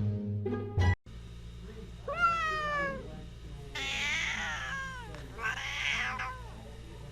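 A domestic cat meowing three times, each meow drawn out for about a second and falling in pitch at its end, the second and third rougher than the first, over a low steady hum. A few plucked music notes sound in the first second, before a cut.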